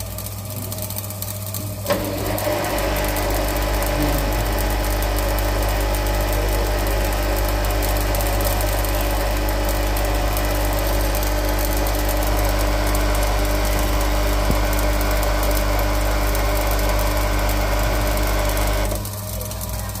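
Brushed drive motor of a Midea front-load washing machine running, its carbon brushes sparking. After a sharp click about two seconds in it runs louder and steadily over a constant low hum, and drops back near the end.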